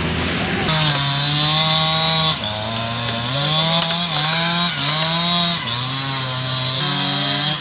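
Two-stroke chainsaw running, its engine pitch stepping up and down repeatedly as the throttle is worked, as when cutting up fallen trees.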